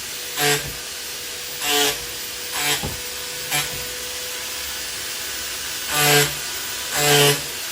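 Arbortech power chisel running with a steady hum, biting into wood in about six short bursts, each louder and harsher than the idle running.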